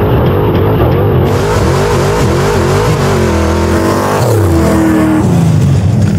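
Engines of a 1997 Ford F-350 prerunner and a tube-chassis truggy running hard in a side-by-side off-road drag race. The engine pitch wavers up and down quickly as the trucks go over the jumps. About four seconds in, the pitch falls away as they back off.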